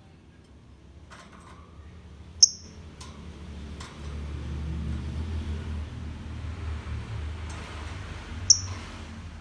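Lovebird giving two sharp, high-pitched chirps, one about two seconds in and one near the end, with a few fainter chirps in between, over a low rumble.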